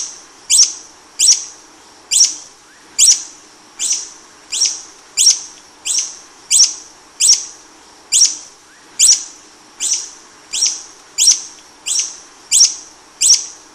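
Hummingbird giving a steady series of sharp, high chip calls, about three every two seconds, each note fading quickly.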